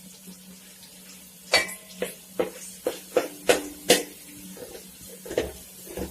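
A spoon knocking and scraping against a large metal uruli pan while stirring sliced onion frying in oil. There is a quick series of sharp clanks, some with a short ring, starting about a second and a half in, another near the end, and a low steady hum underneath.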